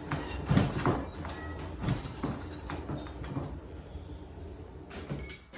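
Irregular dull knocks and clanks of blacksmith's tools over a steady low rumble, while a hole punch is readied for hot mild steel; the knocks thin out and quieten after about three and a half seconds.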